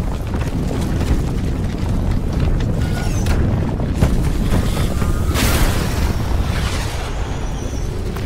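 Animated-film soundtrack: a deep, steady rumble under music, with two rushing whooshes about five and a half and seven seconds in.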